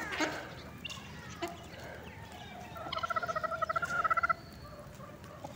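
A bird calling in a rapid run of short pitched notes, about ten a second, growing louder for over a second and then stopping abruptly.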